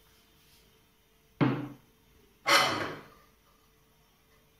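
Two sharp knocks about a second apart, the second louder and brighter, as a glass olive oil bottle and a frying pan are handled at a gas stove: the bottle set down and the pan lifted off the burner grate.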